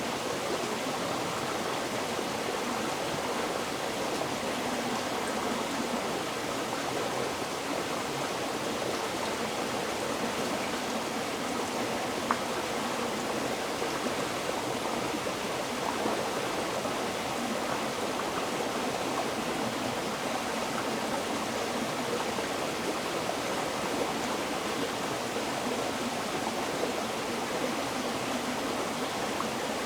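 River water flowing steadily over rocks: an even rushing and babbling with a few small splashes.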